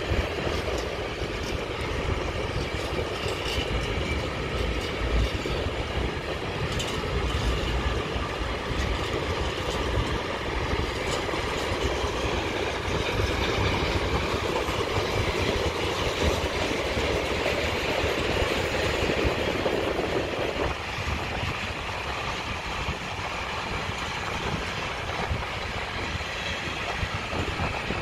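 A freight train of rail tank wagons rolling steadily past, its wheels making a continuous rumble on the rails with scattered clicks. Part of the noise drops away suddenly about three-quarters of the way through, leaving a lower, thinner rumble.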